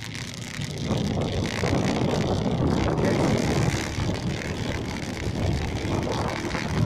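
Steady rumble of a moving vehicle on a wet street, with wind buffeting the microphone.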